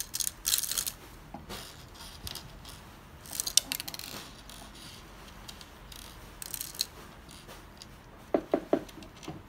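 Small steel screws clicking and clinking as they are picked up off a table and dropped into an auto-feed screwdriver attachment, in several short bursts of sharp clicks.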